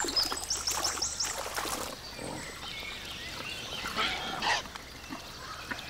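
Wild boar snuffling and splashing as it roots with its snout in shallow muddy water, with high, rapid chirping over the first two seconds.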